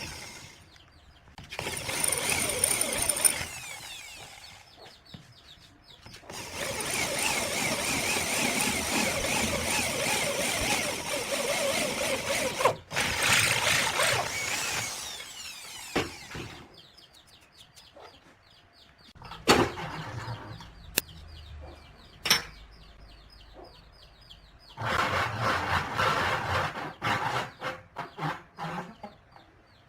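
Angle grinder working wood in several bursts of a few seconds each, stopping and starting, with short clicks and knocks in the gaps.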